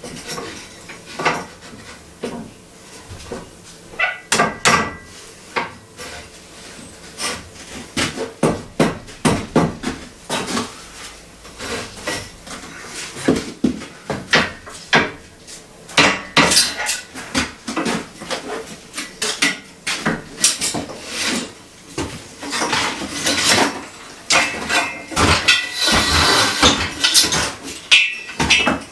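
Hammer knocking on steel acrow props, with irregular metallic knocks and clanks that come thicker in the second half as the props are worked loose.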